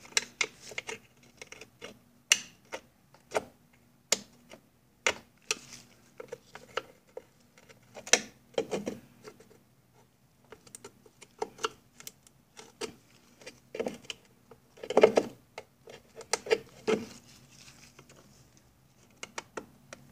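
A screwdriver clicking, tapping and scraping against metal spring clips and the outboard's metal cover pan. It makes irregular sharp clicks and knocks, some in short flurries, as the clip legs are pushed in and the rusted clips resist.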